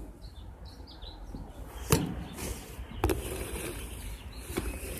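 A pet bird giving a few short, high chirps in the first second, followed by two sharp clicks about a second apart.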